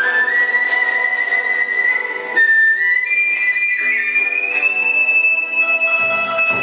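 Chinese folk ensemble music: a transverse bamboo flute (dizi) holds long high notes, stepping up in pitch a few times, over guzheng zithers and a keyboard. A fuller, lower ensemble sound comes in near the end.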